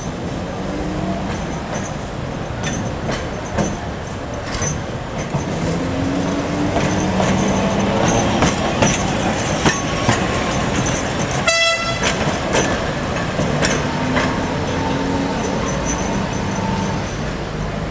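Heritage electric tram running on its rails: the traction motors whine, rising and falling in pitch, and the wheels click over rail joints. One short horn toot sounds about two-thirds of the way through.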